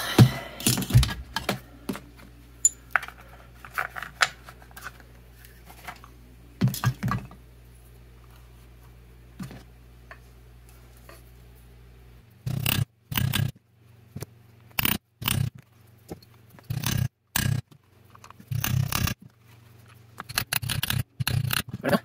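Brass-headed hammer striking trimmed copper rivet ends on a leather holster laid on a steel anvil block, peening them round. Sharp metallic blows come a few at a time: a cluster at the start, light taps, a quiet stretch, then repeated strikes in pairs and triples through the second half.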